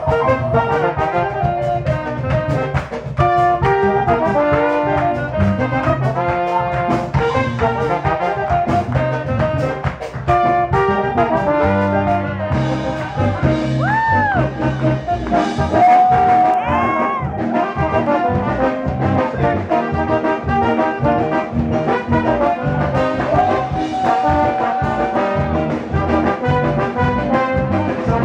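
Latin jazz band playing an instrumental passage live: a horn section over nylon-string acoustic guitar, double bass and drum kit, with a steady beat. A few notes bend up and down about halfway through.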